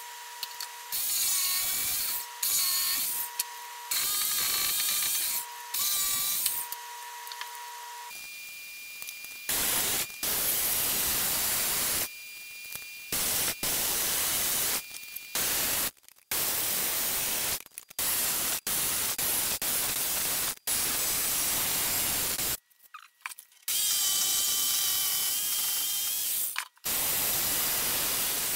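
Ryobi Speedmatch jigsaw cutting through a thick pine board. The saw runs in stretches of a few seconds that start and stop abruptly, with a faint steady whine over the blade noise in the first stretches.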